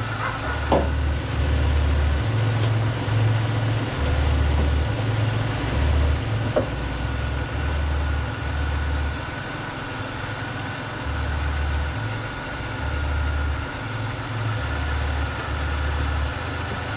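A car engine idling steadily, with irregular low rumbling, a few sharp clicks, and a faint steady whine that comes in about six seconds in.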